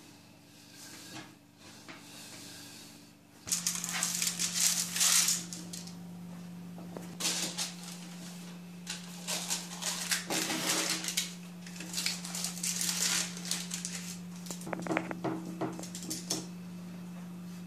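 Rustling bursts of baking paper and dough being handled on a metal baking tray, with a few light clicks. A steady low hum starts a few seconds in.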